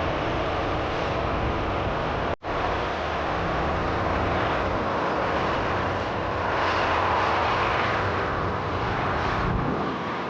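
Jet airliner engine noise, steady, swelling a little about seven seconds in, with a momentary dropout about two and a half seconds in.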